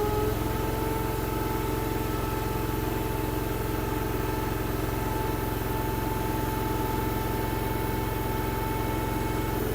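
Derette DRT450 mini skid steer's engine running steadily under hydraulic load as the loader arms are raised, with a steady whine over the engine hum.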